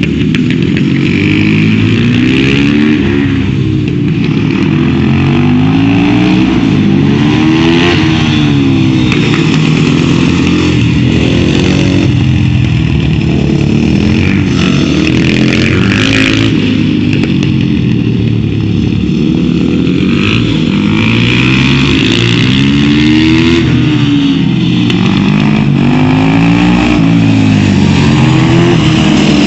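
Supermoto motorcycles lapping a track, their engines revving up and down in repeated rising and falling sweeps as they accelerate, shift and slow for corners, at times more than one engine at once.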